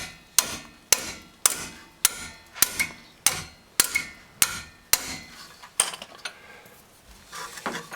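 Hammer tapping metal on a car's rear disc brake assembly after it has been tightened: about ten sharp, ringing taps roughly every half second, stopping about six seconds in.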